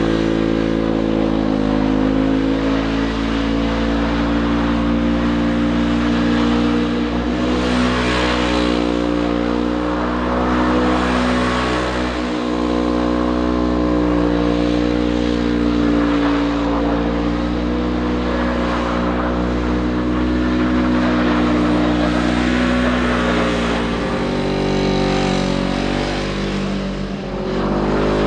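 Polaris RZR 900 side-by-side's parallel-twin engine running hard under throttle as the buggy slides in circles on snow. The pitch stays high and wavers slightly, then drops briefly near the end before picking up again.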